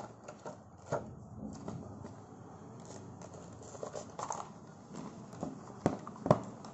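Hands opening a small product box: a plastic cover and cardboard packaging rustling and scraping, with scattered light clicks and two sharp clicks near the end, the loudest.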